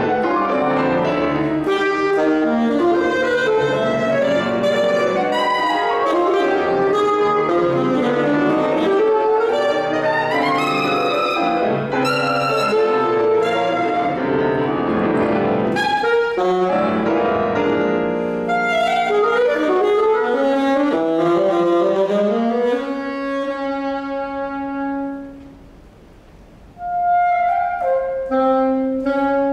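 Saxophone with piano playing a busy, fast-moving passage of mid-20th-century classical music. Near the end a long held note fades into a short pause, and then the saxophone comes back in with sustained notes.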